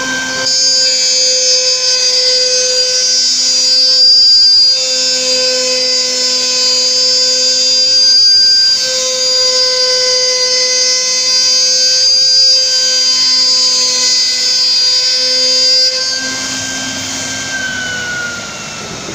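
CNC router spindle whining at a steady high pitch while its bit cuts through a chipboard sheet, with the rasp of the cut laid over the whine. A little after the halfway mark of the last third, the cutting noise drops away and the whine falls steadily in pitch.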